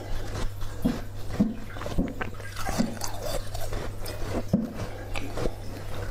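Slushy water-bottle ice being chewed close to the microphone: a run of short, wet crunches, roughly two a second, over a steady low hum.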